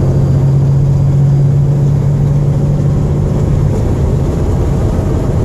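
Semi truck's diesel engine heard inside the cab while driving, a steady low drone with road noise; the drone eases a little after about three and a half seconds.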